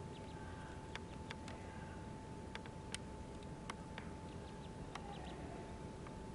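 Mallard ducklings peeping faintly and sparsely, with scattered sharp ticks, over a steady high-pitched hum and low background noise.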